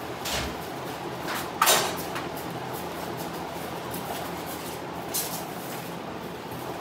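Steady whoosh of a large drum fan, broken by a few sharp metallic clinks and clunks of hand tools being handled in the engine bay. The loudest clunk comes about a second and a half in.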